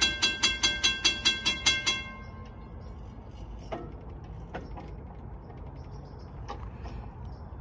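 Railroad grade-crossing warning bell ringing rapidly, about four or five strokes a second, then cutting off about two seconds in once the crossing gates are down, leaving a low steady rumble with a few faint clicks.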